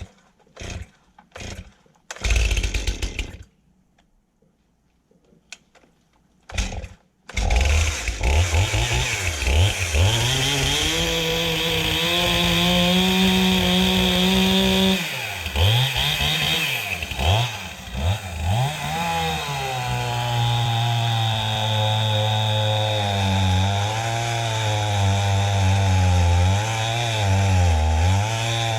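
Stihl Farm Boss two-stroke chainsaw being started: a few short pulls and sputters, then it catches about seven seconds in and runs, its engine speed rising and falling as it is revved.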